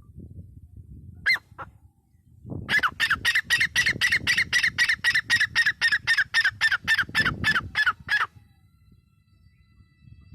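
Grey francolin calling: two short notes, then a fast run of sharp, downward-sliding notes at about four a second that lasts some five seconds and stops abruptly. A low rumble runs underneath.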